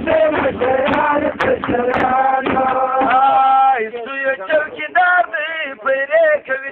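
Men singing a Pashto folk song over a beating drum. About four seconds in the accompaniment thins out and a single male voice carries on with wavering, held notes.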